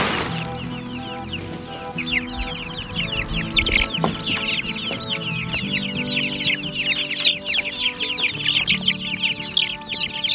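A flock of chicks about three weeks old peeping. A dense chorus of quick, falling cheeps starts about two seconds in and keeps up.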